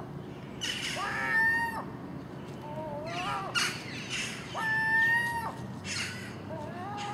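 Common gulls calling: four drawn-out, pitched calls, each about a second long. Some are held level and others rise and waver.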